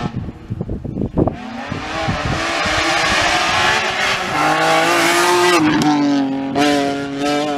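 Wind buffets the microphone briefly. Then a BMW 3 Series coupé rally car's engine comes in, pulling hard with its pitch rising steadily as it climbs toward the bend. About six seconds in the pitch drops at a gear change, and the engine then carries on loud and steady as the car passes close by.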